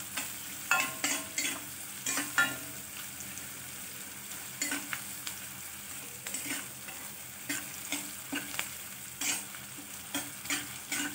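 Chopped onions sizzling in hot oil in a stainless steel kadhai, with a spatula scraping against the pan in irregular strokes as they are stirred. The onions are being sautéed until soft.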